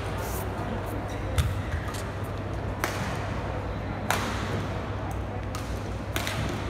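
Badminton racket strikes on a feathered shuttlecock: four sharp smacks, about a second and a half apart, over a steady low hum.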